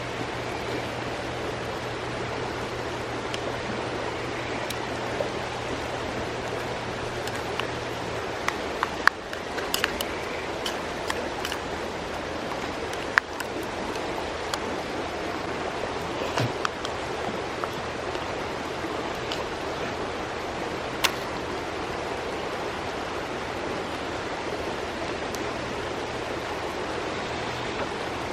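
Mountain stream rushing steadily, with a scattering of sharp clicks and taps for several seconds near the middle.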